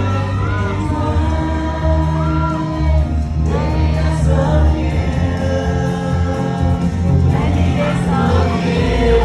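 Live Vietnamese pop love song: singing over a backing track with a steady bass line.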